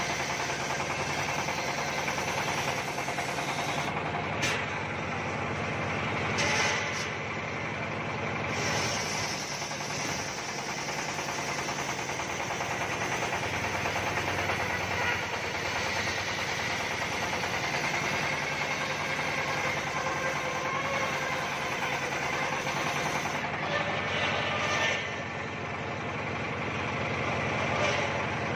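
Homemade circular saw bench ripping a teak slab lengthwise, with a large blade cutting steadily through the wood under a continuous machine drone.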